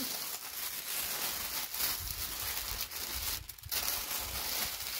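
Tissue paper rustling and crinkling as hands fold it around a small item to wrap it, with a brief pause about three and a half seconds in.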